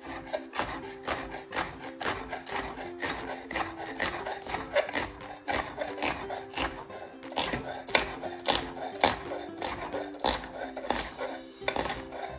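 Chef's knife slicing a red onion on a stone cutting board: quick, even knocks of the blade on the board, about three a second, with background music underneath.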